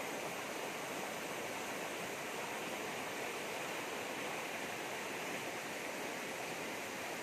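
Rocky stream rushing steadily over shallow rapids.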